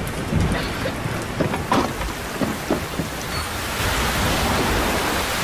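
Heavy rain pouring down steadily. A few short sharp taps or knocks come about one and a half to three seconds in, and the rain's hiss grows fuller in the second half.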